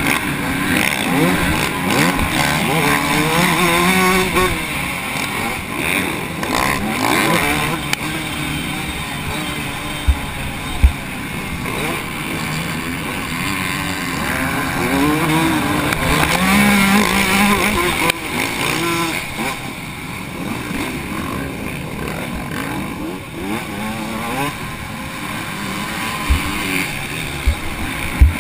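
TM Racing MX 144 two-stroke motocross engine at race pace, its pitch rising and falling again and again as it revs up and drops through the gears. A couple of sharp knocks stand out about ten seconds in and again near the end.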